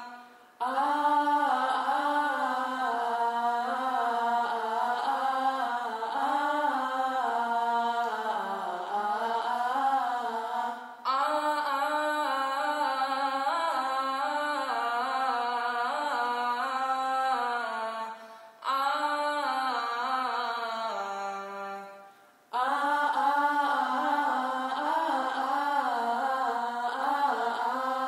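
Unaccompanied chanted singing in long, slowly moving phrases, with short breaks between phrases about 11, 18 and 22 seconds in.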